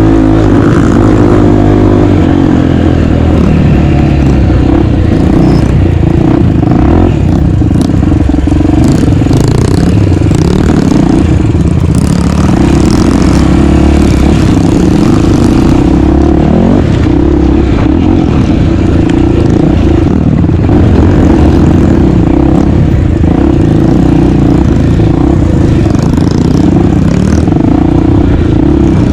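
250 cc dirt bike engine running hard and loud while being ridden, its revs rising and falling continuously.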